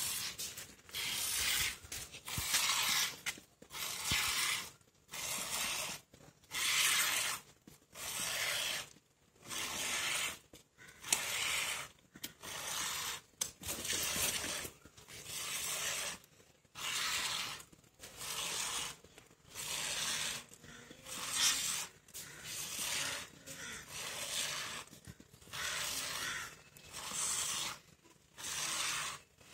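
Goat being milked by hand: short hissing squirts of milk jetting from the teat into a plastic bowl, one per squeeze, about one a second in a steady rhythm.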